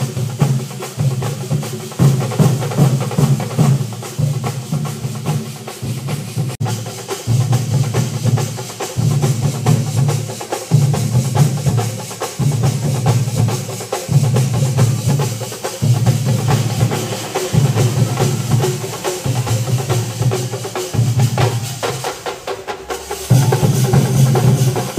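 Thambolam percussion band playing loud, fast percussion: dense clattering strokes over a deep drum beat that pulses in repeated blocks. Near the end the deep beat drops out for about a second, then comes back.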